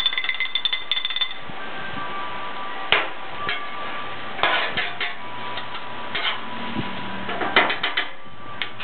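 Metal spatulas clanking and scraping on a Blackstone steel griddle while stir-frying rice: a fast run of ringing metal taps for about the first second, then separate clanks and clatters every second or two, over a steady sizzle.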